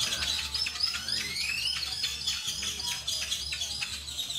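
Birds chirping, a quick run of high chirps with one rising whistled note about a second in.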